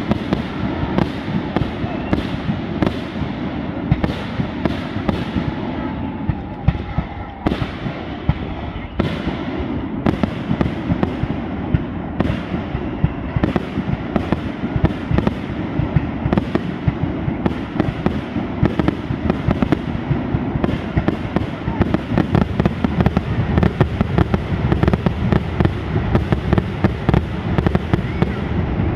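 Aerial fireworks shells bursting in a rapid, continuous run of sharp bangs and crackling, with no let-up.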